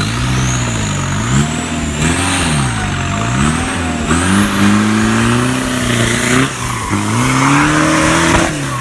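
Off-road 4x4's engine revving up and down over and over, the throttle worked hard in repeated surges, with a thin high whine rising above it.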